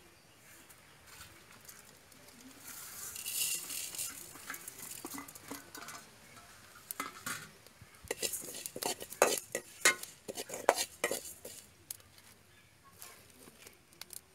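Cumin and fennel seeds being dry-roasted without oil in an aluminium pan and stirred with a steel spoon. There is a soft rustling hiss of the seeds a few seconds in, then a run of quick clinks and scrapes of the spoon against the pan.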